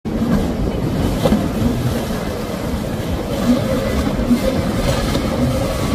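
Outboard motor of a center-console boat running at speed, with water rushing and spraying off the hull as it crosses choppy water.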